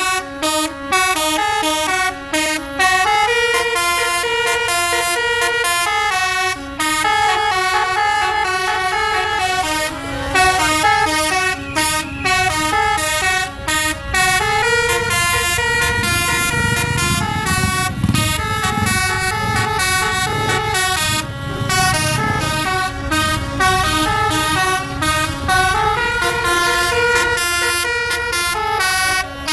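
Bus 'telolet' horn, a set of electrically valved air horns, playing a tooting tune of quick changing notes, with a low engine and traffic rumble underneath in the middle stretch.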